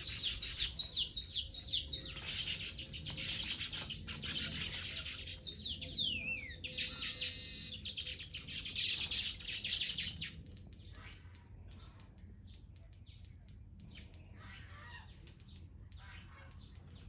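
A colony of baya weavers chirping and chattering at their nests: a dense run of high chirps with a falling call near the middle, dropping to fainter, scattered chirps about ten seconds in.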